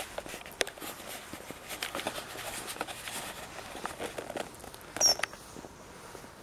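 Footsteps of a person walking on a path, an irregular patter of light steps and rustles. About five seconds in there is a brief high-pitched chirp, the loudest sound here.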